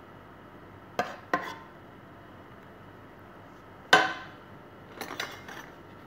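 Metal serving spoon clinking against cookware as thick béchamel sauce is spooned out: two knocks about a second in, a louder ringing clink near four seconds, then a few lighter clinks near the end.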